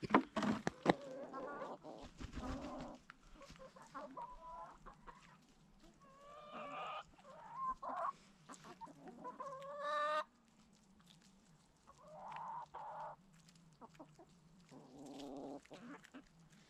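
Domestic chickens clucking and calling, several separate calls, one a longer rising call that cuts off about ten seconds in. A few sharp knocks in the first second.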